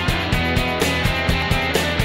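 Background music with a steady beat, about four beats a second.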